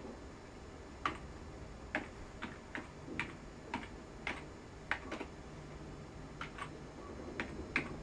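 Keys on a computer keyboard pressed one at a time, a dozen or so separate, faint clicks spread unevenly over several seconds as a short name is typed.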